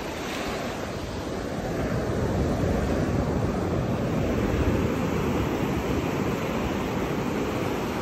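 Small waves breaking and washing up a flat sandy beach: a steady rush of surf that swells a couple of seconds in and eases off again.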